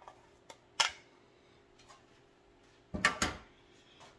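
Clear plastic Vidalia chopper container being emptied into a glass mixing bowl: one sharp click a little under a second in, then two heavier knocks in quick succession near the end.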